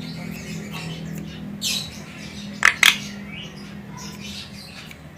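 Javan myna calling: a short rasp about one and a half seconds in, then two sharp, loud squawks in quick succession a second later, with fainter harsh chatter around them. A steady low hum runs underneath and fades out near the end.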